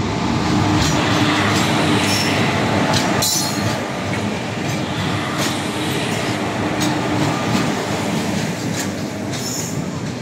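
Twin WAG-5HA electric locomotives and a rake of BLC low-platform container flat wagons rolling past close by: a steady loud rumble of steel wheels on rail, with frequent sharp clicks as wheels cross rail joints.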